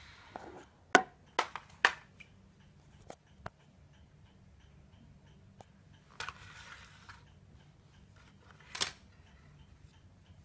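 Sharp plastic clicks and knocks as a small JJRC H12C toy quadcopter is handled. There are three loud ones in the first two seconds, a few lighter taps, a short rustle a little past the middle, and another loud click near the end, over a faint regular ticking.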